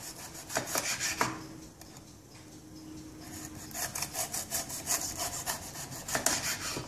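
Kitchen knife sawing back and forth through a green bell pepper on a wooden cutting board, cutting a thick ring: a run of short rasping strokes, a few at first, a pause of about two seconds, then a quick steady run of strokes.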